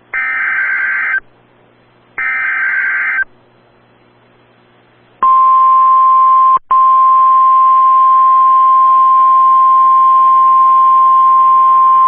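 Emergency Alert System SAME header: two loud bursts of warbling digital data tones, each about a second long and about two seconds apart. About five seconds in, the steady 1050 Hz NOAA Weather Radio warning alarm tone begins. It drops out for an instant a second later and carries on, signalling an urgent warning, here a tornado warning.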